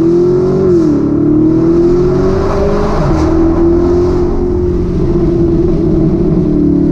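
Chevrolet Camaro's LT1 V8 heard from inside the cabin under hard acceleration. Its pitch drops about a second in as it shifts up, then climbs again and holds fairly steady.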